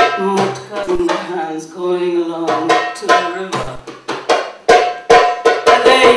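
Music with sharp, unevenly spaced drum strokes and a wavering melodic line over them.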